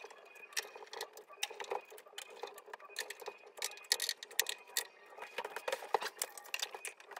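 Phillips screwdriver driving screws into a mixing console's plastic side panel: a run of small, irregular clicks and taps.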